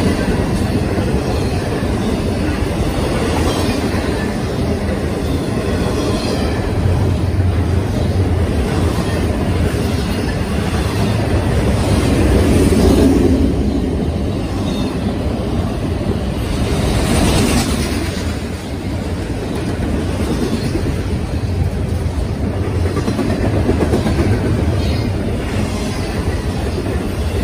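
Double-stack container freight train rolling past close by: a steady loud rumble and clatter of the well cars' wheels on the rails.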